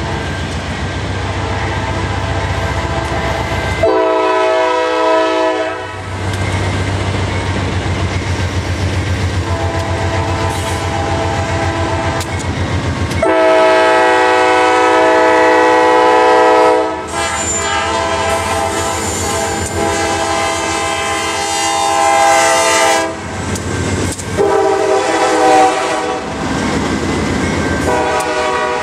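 Locomotive horn sounding in several blasts of varying length over the low rumble of a passing train, the longest and loudest blast about halfway through.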